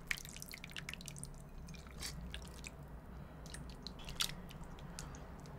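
Ladle scooping kimchi stew from a stainless steel pot into a bowl: soft dripping and squishing of the broth, with a few light clicks of the ladle against the pot.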